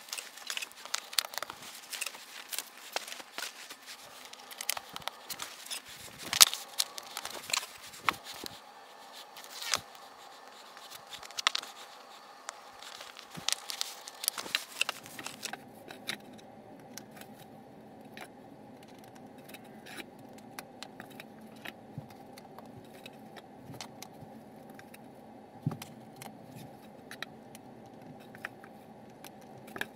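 Crinkling paper and light clicks and taps as glass mosaic tile sheets are handled and laid onto a tile backer board. About halfway through the sound turns duller and quieter, with only scattered small taps.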